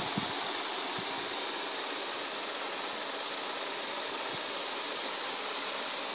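Steady, even hiss of background noise, with one sharp knock right at the start and a few faint soft thumps.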